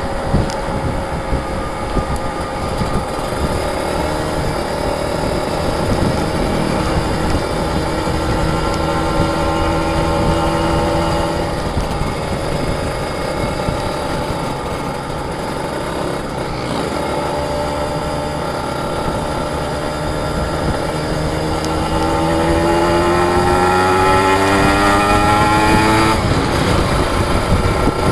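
Kawasaki Ninja RR two-stroke single-cylinder engine riding under way, with rough wind rush on the microphone. Late on, the engine pitch climbs steadily as it accelerates, then drops sharply near the end at a gear change.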